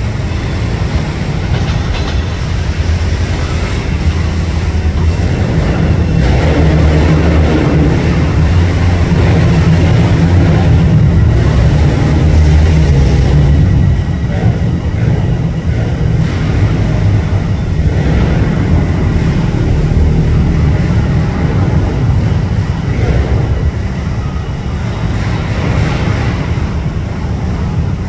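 Departing LIRR diesel train led by a DM30AC locomotive, running with a steady low rumble of engine and wheels on rail. It grows louder over the first third, then eases and holds as the train pulls away.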